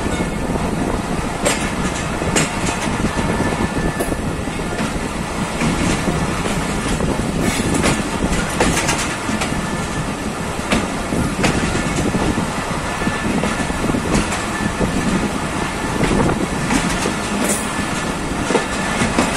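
Pakistan Railways passenger train rolling along the track, heard from the coach: a steady rumble of wheels on rail with scattered clicks and knocks as the wheels pass over rail joints.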